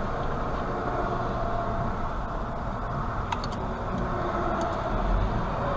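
Car engine and road noise heard from inside the cabin, a steady hum while driving slowly, with a faint click about three seconds in.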